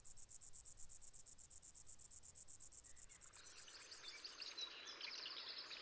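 Insects chirping in a fast, even, high-pitched pulse of about eight beats a second. The chirping stops about four and a half seconds in, leaving faint outdoor background with a few short high chirps.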